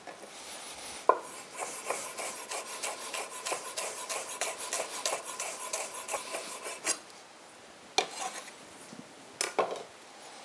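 Chef's knife rapidly chopping fresh coriander on a wooden butcher-block board: a fast run of taps lasting about six seconds. A few separate knocks follow near the end.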